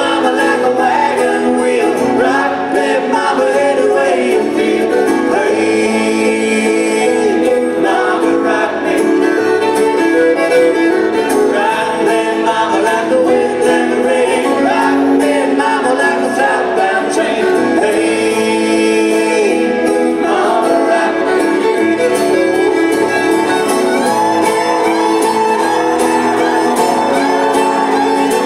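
Live old-time string band playing at full volume, with fiddle, banjo, acoustic guitars and upright bass, and singing over it.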